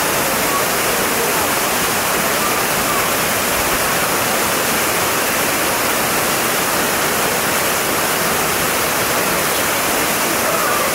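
Waterfall rushing: a loud, steady, even roar of falling water.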